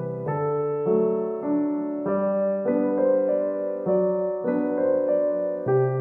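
Background music: a soft piano-style keyboard playing sustained notes and chords, a new one sounding a little under twice a second at an even pace.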